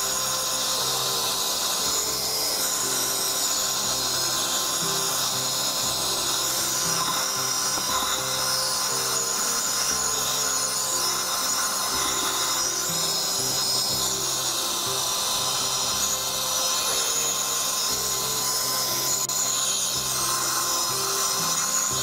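Piranha PVC-4005 handheld car vacuum, a 12 V 60 W cigarette-lighter model, running steadily with a constant motor whine as its nozzle is worked over dirty floor carpet. Background music plays under it.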